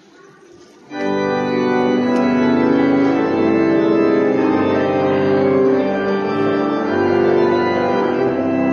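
Pipe organ starts playing about a second in, with loud sustained chords that hold and shift.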